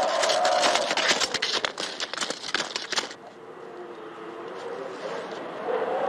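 Wind howling with a slowly wavering pitch. For the first three seconds there is also a dense, irregular crunching of snowshoes on snow, which cuts off abruptly; after that the wind goes on quieter and swells again near the end.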